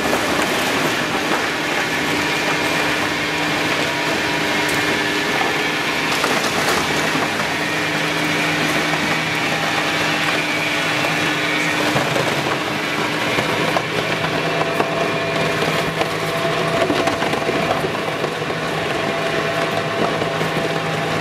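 EPS hot melting machine running, its twin-shaft crusher blades tearing expanded polystyrene foam into small pieces over a steady motor hum, with occasional sharp cracks.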